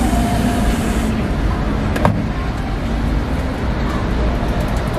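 Steady street traffic din, with the hiss of an aerosol whipped-cream can spraying that cuts off about a second in. A single sharp click near the middle.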